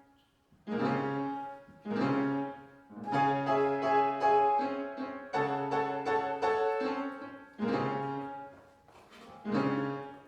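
Piano playing slow chords, each struck and left to fade before the next, about seven in all.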